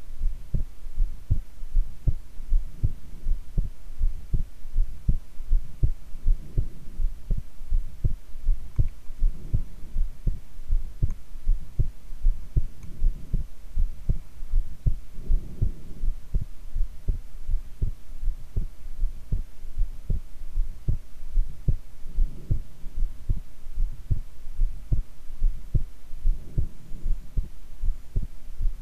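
A woman's heartbeat recorded while she lies prone: a steady, regular run of low thuds, beat after beat, over a faint steady hum.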